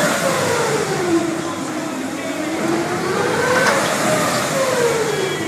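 Amusement ride machinery whining, its pitch rising and falling in slow waves about every four seconds, over a steady rushing noise.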